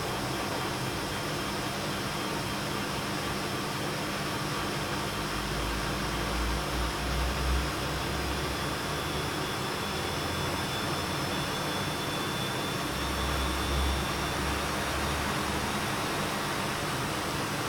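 1997 Bosch WFK2801 washing machine drum spinning in the intermittent spin before the softener rinse of a cottons 60°C wash: a steady whirring rush with a faint high whine. The machine gives two deeper rumbles, one about a third of the way in and one past the middle.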